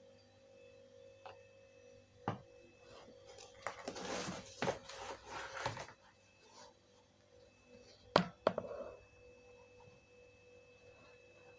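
Hard plastic Audi TT Mk1 intercooler air-duct cowling being handled and shifted about: a sharp knock about two seconds in, rustling and scraping from about three to six seconds in, and the loudest sharp knock about eight seconds in. A steady faint hum tone runs underneath.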